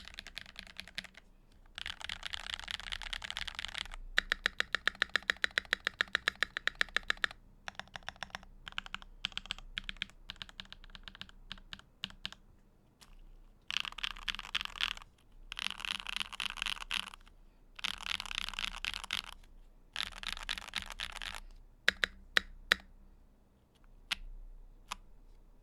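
Typing on an ROG Azoth mechanical keyboard fitted with lubed Gateron Summertime switches, an aluminum plate, GMK keycaps, PE foam and the tape mod. Bursts of fast typing alternate with a run of evenly spaced single keystrokes, about six a second, a few seconds in, and a few louder isolated strokes near the end.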